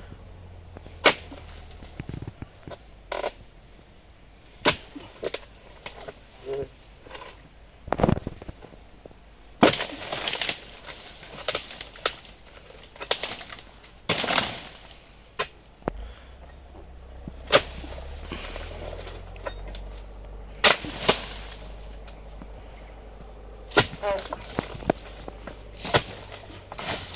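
Sharp, irregular knocks, one every second or few seconds, of a dodos chisel on a long pole being jabbed into the tough bases of oil palm fronds to cut them. A steady high-pitched insect drone runs underneath.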